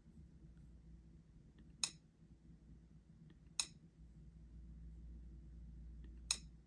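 Three short, sharp key-press clicks from a tablet's on-screen keyboard, a couple of seconds apart, over a faint steady hum.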